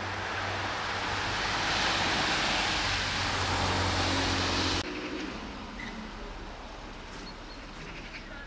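A vehicle running close by, its noise swelling louder over a steady low hum, then cutting off abruptly about five seconds in, leaving a quieter outdoor background.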